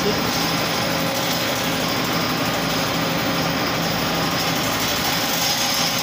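Steady machinery noise with a low hum, unchanging throughout.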